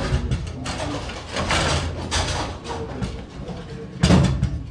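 Table-football game in play: a run of sharp knocks and clacks as the ball is struck by the figures on the rods and bangs against the table, the loudest about four seconds in.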